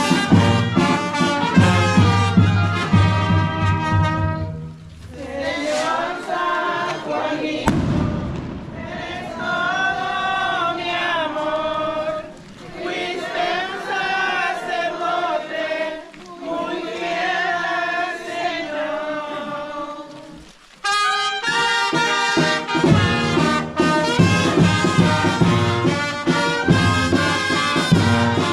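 Brass band playing. The full band with a steady low bass rhythm plays at the start and comes back about twenty seconds in; in between, the bass drops out and a quieter melody goes on in phrases with short breaks between them.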